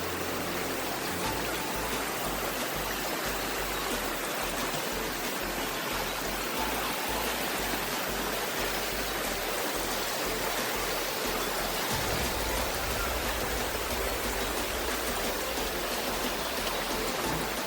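Rushing river water: a steady, loud rush of flowing stream water.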